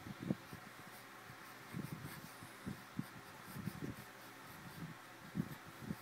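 Soft, irregular low thumps and rubbing from a baby's hands grabbing at a phone close to its microphone, over a faint steady hiss.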